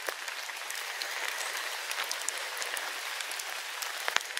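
Rain falling on the leaves of the woodland canopy: a steady, even patter with scattered single drops ticking through it.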